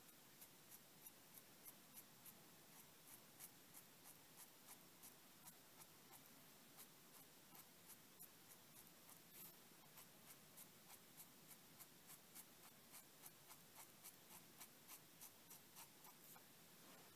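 Faint scratching of a crow quill pen nib on paper in quick, short hatching strokes, about three a second.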